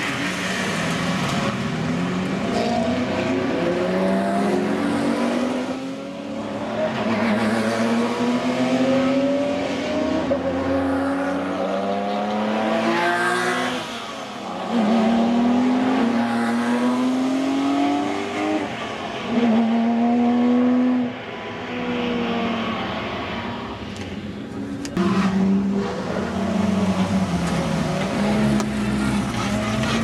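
Sports car and supercar engines accelerating hard, several cars in turn, each engine note climbing in pitch through the gears and dropping back briefly at each upshift.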